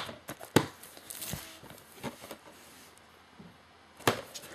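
Hands handling shrink-wrapped DVD hard-box cases: a sharp click about half a second in, a short rustle of the plastic wrap, a few faint ticks, then another sharp click near the end.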